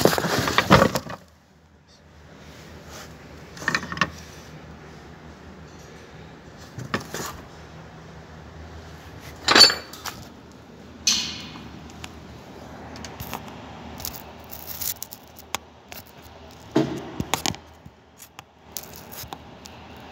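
Scattered metallic clinks and knocks of hand tools on a bus's rear brake drum and hub, over a faint steady hum. A scraping rustle fills the first second.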